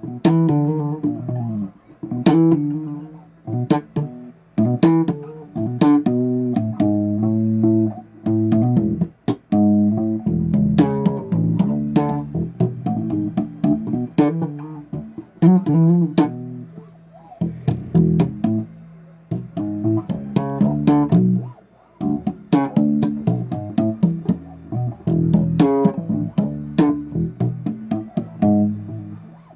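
Bass guitar played solo: a stream of plucked riffs and runs, each note with a sharp attack, with short breaks about a third and two thirds of the way through.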